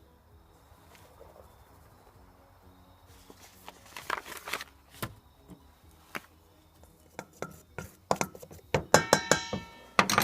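Cooking utensils and cookware clinking and knocking, scattered through the second half, with a ringing clink near the end, over faint background music.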